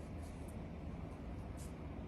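Heavy rain falling, a steady rushing noise with a few brief faint high ticks.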